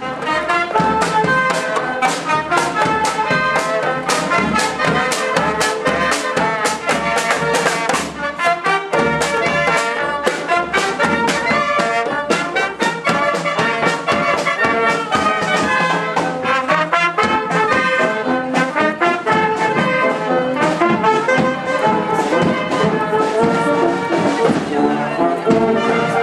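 Brass band music, with trumpets and trombones over a steady drum beat.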